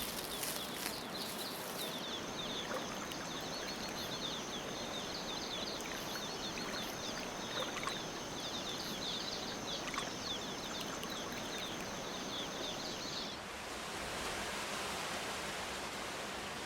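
Rainforest ambience: a constant hiss with rapid high chirping and a steady high whine of insect-like calls. About thirteen seconds in, the chirping and whine stop and an even, broader hiss takes over.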